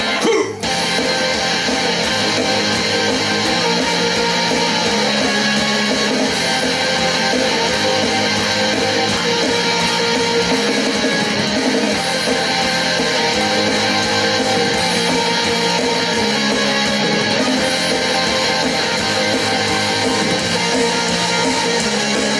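Instrumental introduction of a pop song: a band-style backing track led by strummed guitar over a moving bass line, with no singing.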